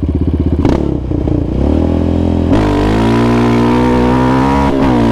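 Yamaha Raptor 700R ATV's single-cylinder engine, breathing through an aftermarket Monster exhaust and FCI intake: loping at low revs with a quick throttle blip about a second in, then revving up and pulling hard and steady from about halfway, with a brief dip in revs near the end.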